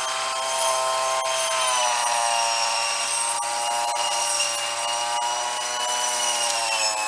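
Gas engine of a Snapper commercial weed eater fitted with a circular saw blade, running at high speed with a steady whine; the engine pitch drops about two seconds in and again near the end.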